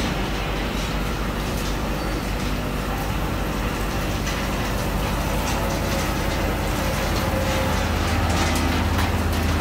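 Industrial plastic shredder, driven by a Crompton electric motor through a helical gearbox, running while its cutters chop yellow plastic sheet into flakes: a steady low hum under a dense rattle of cutting, getting a little louder near the end.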